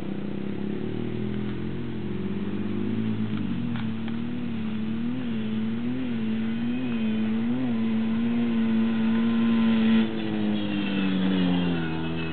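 Small ATV (quad) engine running, its pitch rising and falling in several short throttle pulses, then held steady as it gets louder. About ten seconds in the engine note drops in pitch as the quad slows and turns across the sand.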